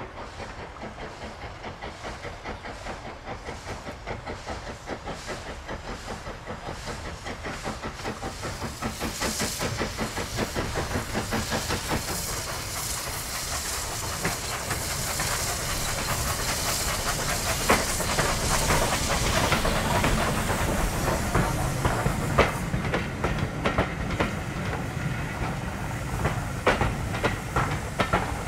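LMS Fowler 3F 'Jinty' 0-6-0T tank engine working hard as it pulls a passenger train away, its steam exhaust beating steadily and growing louder as it nears and passes. In the later part the coaches run by, wheels clicking over the rail joints.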